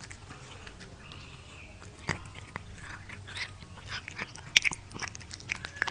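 Cat biting and chewing raw meat slices: wet smacking and sharp clicks of its mouth, coming thick and fast from about two seconds in, the loudest snap a little past the middle.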